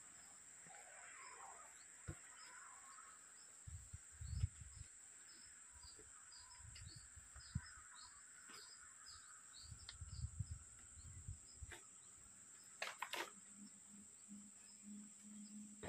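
Faint outdoor ambience: a steady high-pitched insect drone with a run of faint short chirps. A few low bumps and a couple of sharp knocks about 13 seconds in.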